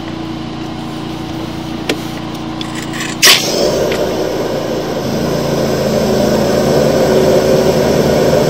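Hydro jetter's engine running steadily. A little over three seconds in there is a sharp burst, and then a rushing hiss of high-pressure water jetting through the sewer line builds and grows louder.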